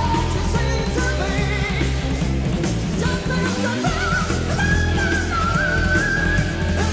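Hard rock band recording: drums, bass and electric guitars, with a high lead line that bends and wavers in pitch over the top.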